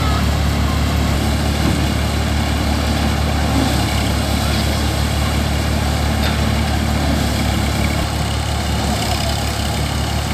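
Massey Ferguson 5245 tractor engine running steadily, driving a paddy thresher as paddy is fed through it: a continuous low mechanical drone.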